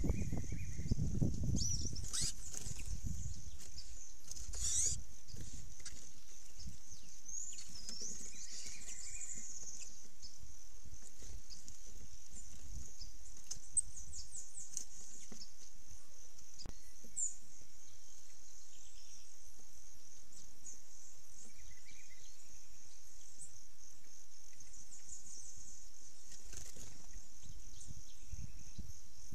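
Steady high-pitched insect chorus with scattered short bird chirps and calls over it. A few low thumps and knocks in the first seconds, as birds move on the wooden feeder board.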